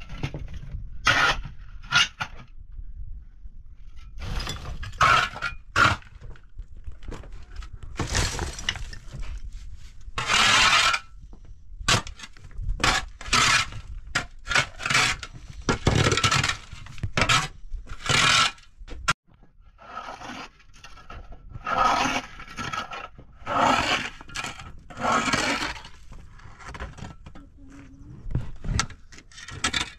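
A metal shovel scraping and scooping dirt and rubble off hard-packed earth, in repeated irregular strokes about a second long, with the grit and stones rattling.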